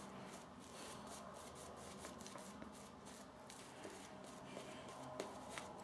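Faint swishing and scratching of a shaving brush's bristles working thick soap lather over the cheek and jaw in quick, irregular strokes.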